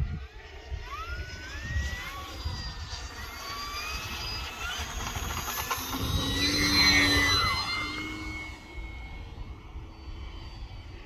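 The electric motor and propeller of an E-flite Focke-Wulf FW-190 radio-controlled model whine as it takes off and climbs away, the pitch rising over the first few seconds. It is loudest about seven seconds in as it passes, when the pitch drops. Wind rumbles on the microphone.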